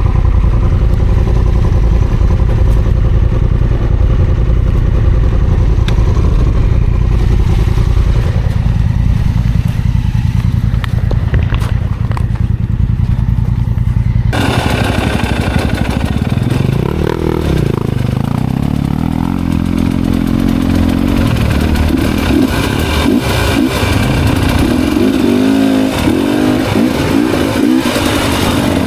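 Dirt-bike engine running with a steady low rumble. About halfway through the sound changes abruptly and the engine revs up and down again and again, as on a steep, loose climb.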